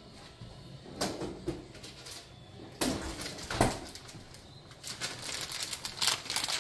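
Crinkling and rustling of packaging as more shredded Parmesan cheese is sprinkled over penne pasta in a pot. A few sharper clicks come about one and three seconds in, and the crinkling becomes dense and busy over the last second and a half.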